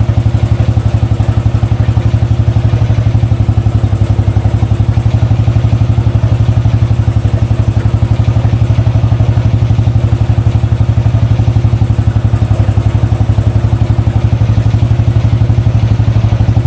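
2013 Royal Enfield Classic 500's single-cylinder engine running steadily after a rebuild, with an even, regular pulse of firing strokes.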